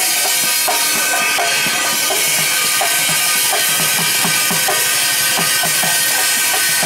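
Small hand drum beaten in a quick, steady rhythm, a few strokes a second, the low strokes dropping slightly in pitch, with sharper higher strokes between them.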